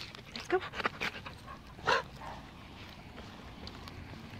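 A nine-month-old Rottweiler panting in short breaths while walking on a leash, with one louder brief sound about two seconds in.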